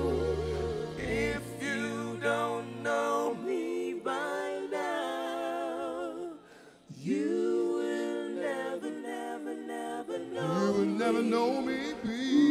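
Women's voices singing together with vibrato, live, with the band mostly dropped out so the singing is nearly unaccompanied. The bass stops about a second in and comes back right at the end, and there is a brief break in the singing about two-thirds of the way through.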